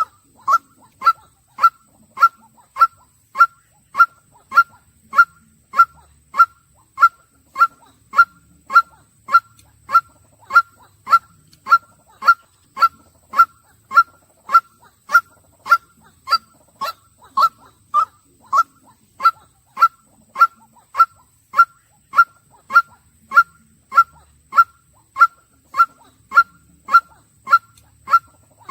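White-breasted waterhen calling over and over: a short note that slides slightly downward, repeated at a very even pace of close to two a second.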